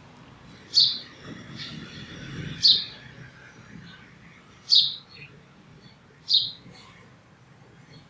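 House sparrow chirping: four loud, sharp chirps about two seconds apart, with fainter chirps in between.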